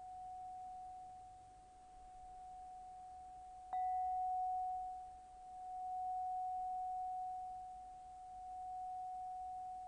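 Crystal pentonia sounding one sustained pure tone that slowly swells and fades. About four seconds in a sharp attack renews it louder, with a brief higher overtone above it.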